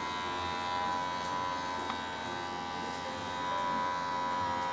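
Electric pet hair clippers running with a steady buzzing hum; the pitch dips slightly near the end.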